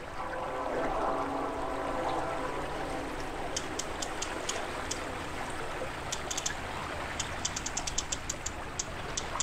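Fishing reel clicking in irregular runs of sharp ticks while a hooked steelhead is being played, over the hiss of river water.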